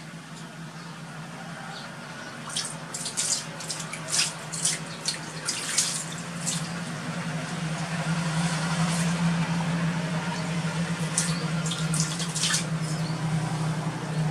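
Water sloshing and splashing in a large plastic tub as a macaque swims and rolls about in it, with a flurry of sharp splashes a few seconds in and another near the end. A steady low hum runs underneath.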